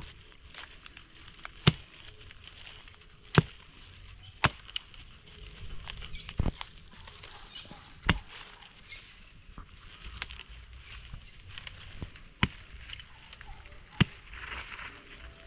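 Machete chopping into soil and roots to dig out a plant's root: about eight sharp strikes at uneven intervals of one to two seconds, with faint rustling between them.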